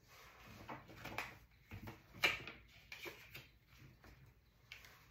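Tarot cards being handled at a table: faint, scattered soft taps and rustles of cards, with one louder tap about two seconds in.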